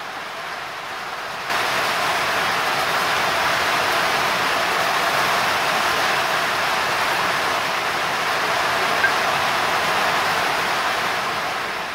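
Heavy rain: a steady rushing hiss that comes in suddenly about a second and a half in and eases off near the end.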